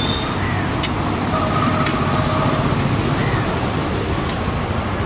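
Steady roadside traffic noise, with a faint held tone for about a second in the middle and a couple of sharp clicks.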